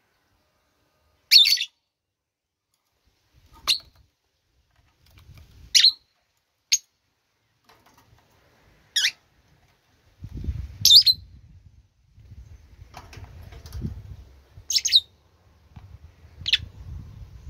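A bird chirping: eight short single chirps spaced a second or two apart. A low rumble runs under the chirps in the second half.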